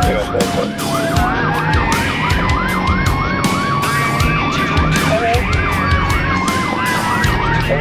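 Fire truck sirens heard from inside the cab: a fast yelp repeating about three times a second over a slower wail that rises and then falls, with the truck's engine and road noise underneath.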